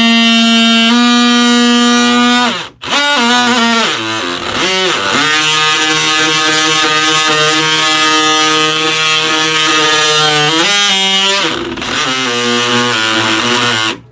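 DeWalt oscillating multi-tool cutting into the wood of a door edge to mortise a latch or strike plate recess, with a loud, steady high whine. It stops briefly about three seconds in and winds back up, its pitch sags a few times as the blade bites, and it cuts off suddenly at the end.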